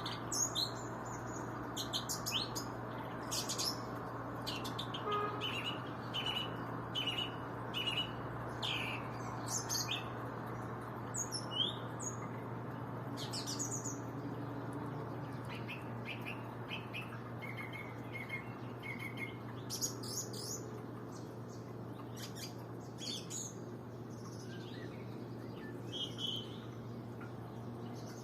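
A small bird singing a varied song of short chirps and whistled notes, repeated in phrases throughout. A steady low hum runs underneath.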